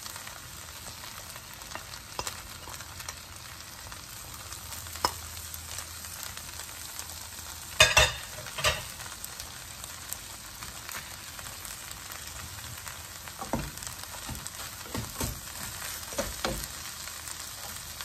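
Prawns and rice noodles sizzling steadily in a frying pan while being stir-fried with tongs, the tongs knocking and scraping against the pan now and then, loudest about eight seconds in.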